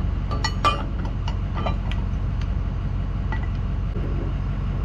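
An engine idling with a steady low hum, with scattered light metallic clinks and ticks, most of them in the first second or so.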